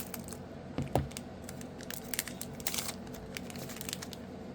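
Crinkling and small clicks of a foil booster-pack wrapper being torn open and cards being handled, with a rustle near the end. A brief vocal sound comes about a second in.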